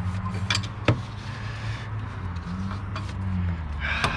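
A vehicle engine idling with a steady low hum, its pitch rising slightly for a moment near the middle, over a few sharp metal clinks and knocks of tools and parts being handled, the loudest about a second in.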